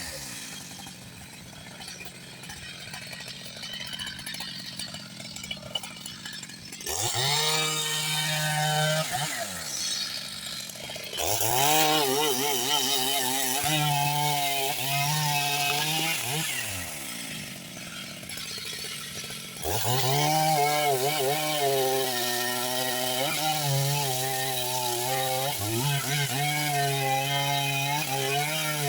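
Large chainsaw sawing into a big trembesi (rain tree) trunk. It runs quietly at first, then revs up about seven seconds in and cuts at full throttle, its note wavering under load. It drops back twice briefly before cutting again.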